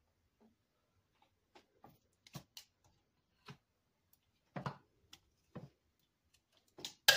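Kitchen tongs clicking and knocking against a slow cooker's crock while chicken leg quarters are lifted in: scattered light taps, then a quick cluster of louder clacks at the very end.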